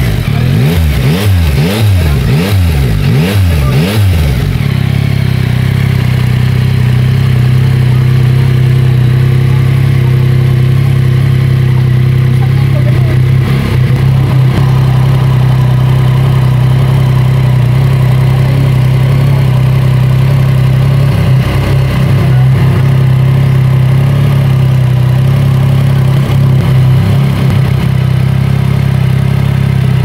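Yamaha MT-09's inline three-cylinder engine through its stock exhaust, blipped quickly about seven times in the first few seconds, then settling into a steady idle.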